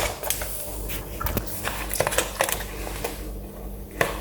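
Close-up eating sounds: a run of short clicks and wet smacks of chewing and of utensils against a plate of okra stew and rice.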